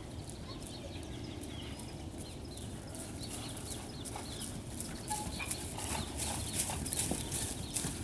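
Hoofbeats of a mare and her week-old foal moving over soft ground and grass: a scatter of dull thuds that gets louder in the second half as they come closer.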